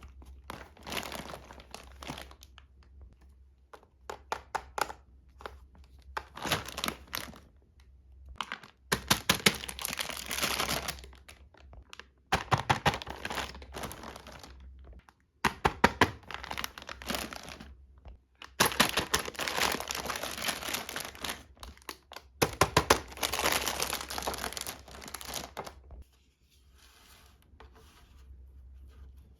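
Plastic toy packaging being handled and unwrapped: crinkling and tearing with crackles and small knocks, in spells of a few seconds with short pauses between them, quieter near the end.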